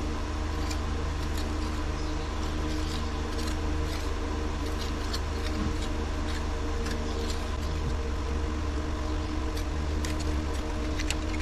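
A steel tuckpointing tool scrapes and ticks irregularly against wet mortar and concrete block as mortar is packed into a cracked foundation joint. Under it runs a steady machine hum.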